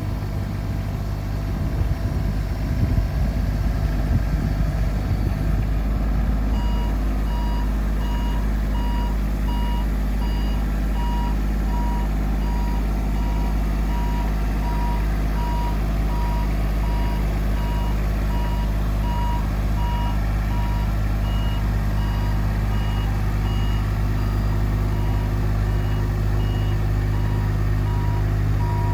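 Tadano NUL060-2 aerial work platform truck running with a steady engine and hydraulic hum. About six seconds in, a warning beeper starts, repeating a high beep about one and a half times a second.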